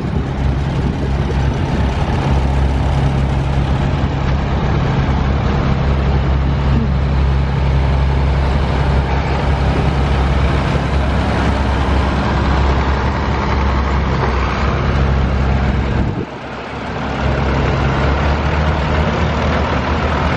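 Farm tractors driving past one after another, their engines running in a steady low hum. The sound drops away briefly about sixteen seconds in, then picks up again.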